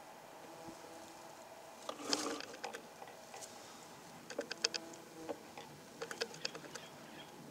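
Australian native stingless bees flying at their log hive entrance: faint brief buzzes mixed with clusters of small clicks and ticks about two, four and a half and six seconds in.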